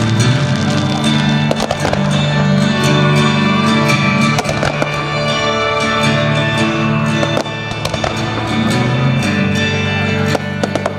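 Music with long held tones, over aerial fireworks going off with many sharp cracks throughout.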